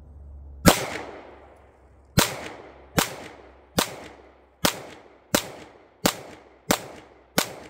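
Nine shots from a Sig Sauer P320 M17 9 mm pistol, fired as a steady two-handed aimed string of a ten-round course of fire: the first about 0.7 s in, then after a pause roughly one shot every three-quarters of a second. Each crack is followed by a short fading echo off the range.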